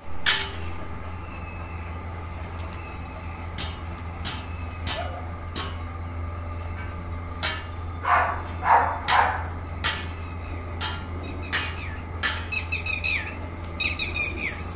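Sharp knocks repeating about every three quarters of a second over a steady low hum, with a few quick runs of short high falling calls near the end.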